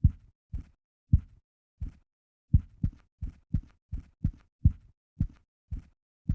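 Typewriter keys striking one after another at an uneven typing pace, about two low thuds a second with a brief pause about two seconds in.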